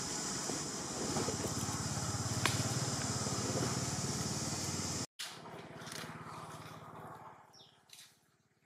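Steady outdoor background noise: a high hiss with a low motor-like rumble that swells in the middle. It cuts off suddenly about five seconds in, leaving fainter ambience with a few soft clicks near the end.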